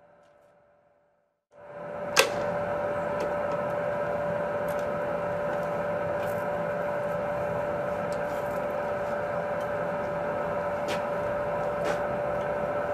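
Steady machine hum with one constant mid-pitched tone, starting abruptly about a second and a half in. A sharp metallic click comes just after it starts, and a few lighter clicks follow.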